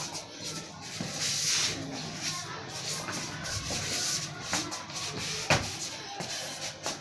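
Sneakers scuffing and sliding on a concrete floor during wrestling footwork and shot drills, with a sharp slap or stamp about five and a half seconds in.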